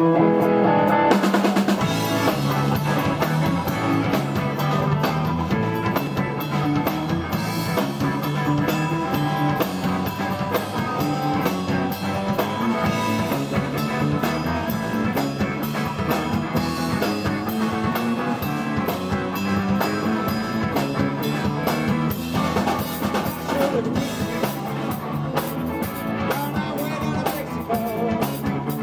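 Live band playing a blues-rock number, with electric guitar over a drum kit and bass, recorded on a camera in a small rehearsal room.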